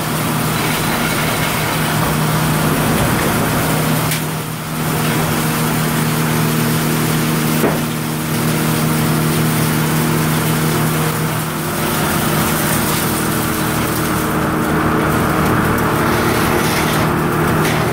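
Circular sawmill running: the large headsaw blade spinning and the log carriage being worked, a loud steady mechanical noise with a constant hum that dips briefly about four and a half seconds in.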